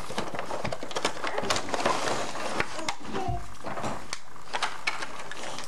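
Irregular rustling and clicking as a toddler handles and opens a present.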